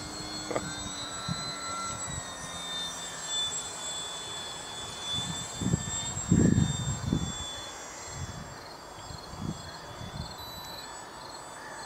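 The electric motor and propeller of a HobbyKing Tundra RC plane make a thin, high whine as it flies. The whine dips a little in pitch a couple of seconds in. Low rumbling thumps hit the microphone around the middle.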